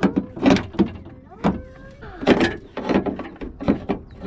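Irregular clicks, knocks and clanks of hands and tools handling metal latch parts inside a truck door, about a dozen sharp hits at uneven spacing.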